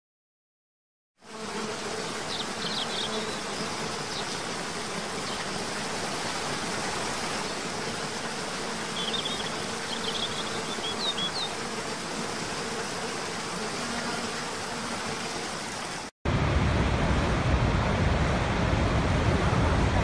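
Steady rush of falling water from a cascading waterfall, starting about a second in, with short high bird chirps twice. About sixteen seconds in it breaks off and cuts to the louder, deeper rush of Niagara's Horseshoe Falls.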